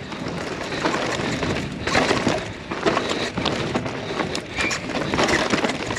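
Downhill mountain bike ridden fast over rough, rocky dirt: a steady rush of tyre noise with many quick knocks and rattles as the wheels and bike hit rocks and roots.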